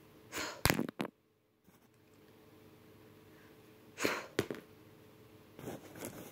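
A girl's short, breathy mouth noises: puffs of air blown out through pursed lips, three in all. The first, near the start, carries a couple of sharp clicks; the others come about four seconds in and near the end.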